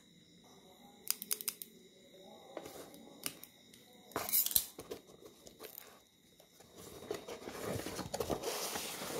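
Scissors snipping with a few sharp clicks at the packing tape on a cardboard box, then a short loud tear of tape, and near the end a longer stretch of rustling and crinkling as the box flaps and packaging are pulled open.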